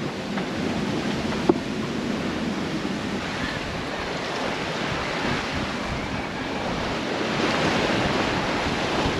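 Sea water rushing and splashing past a sailboat's hull under sail, with wind buffeting the microphone; the rush swells louder near the end. One short sharp knock about one and a half seconds in.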